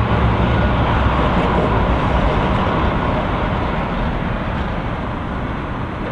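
Blackpool double-deck Balloon tram approaching on its track: a steady rumble of wheels and motors mixed with traffic noise.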